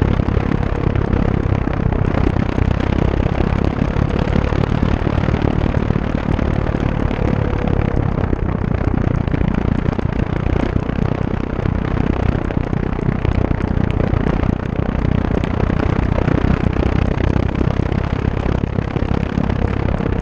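Heavy wind rush on an onboard camera microphone during flight of an E-Flite Timber electric RC plane, with a faint steady hum from its brushless motor and propeller that drifts slightly in pitch.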